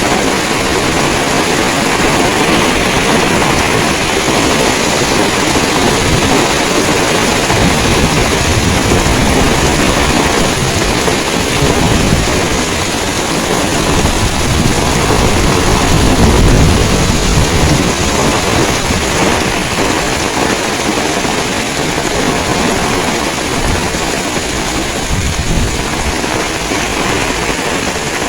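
Heavy rain pouring down as a dense, steady hiss, with strong wind buffeting the microphone in irregular low rumbles that swell loudest about two-thirds of the way through.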